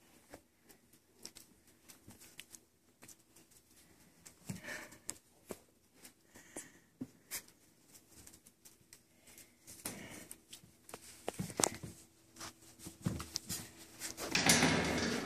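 Month-old poodle puppies wrestling on a towel: scattered scuffles, paw taps and rustling of fabric, with a loud burst of rustling near the end.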